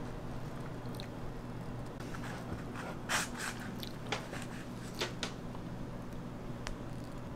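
A knife cutting through a chocolate-chip castella sponge cake, with several short crisp strokes about three to five seconds in and one more near the end, over a steady low hum.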